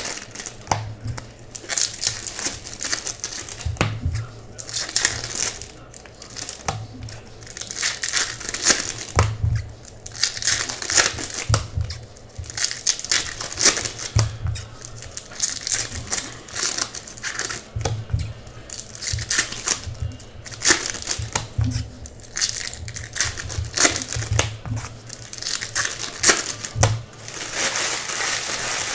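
Foil wrappers of Topps baseball card packs crinkling and tearing in irregular bursts as they are opened by hand, with occasional dull bumps.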